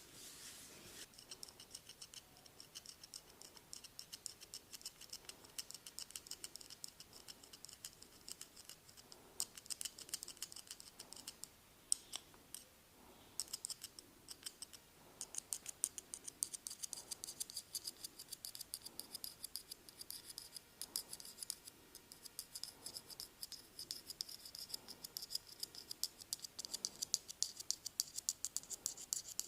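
Rapid, rhythmic clicking of a barber's hand tool, many clicks a second with a bright ringing edge, growing denser and louder about halfway through.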